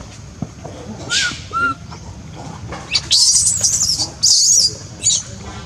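Baby monkey crying: a few short arched squeaks, then loud, high-pitched screeches from about three seconds in, in two long bouts and a short one near the end.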